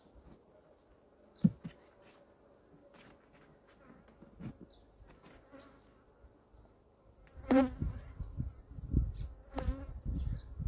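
Honeybees buzzing around an open hive: a faint steady hum at first, then from about seven and a half seconds in, louder buzzes as bees fly close past the microphone. A single sharp knock about a second and a half in.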